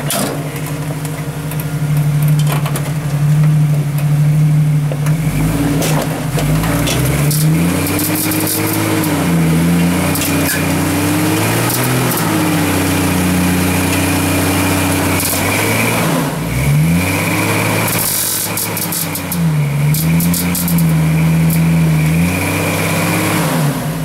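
Rock crawler buggy's engine revving up and falling back repeatedly as it works up a boulder ledge, with sharp knocks and scrapes from tyres and chassis on rock.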